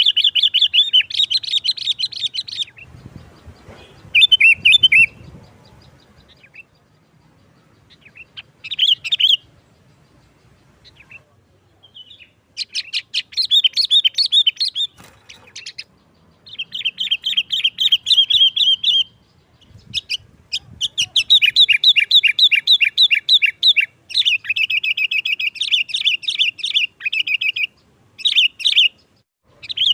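Sooty-headed bulbul (kutilang) singing in repeated bursts of rapid chattering notes, the fast 'nggaruda' style. The bursts last one to three seconds with short pauses between, and a longer busy run comes in the second half.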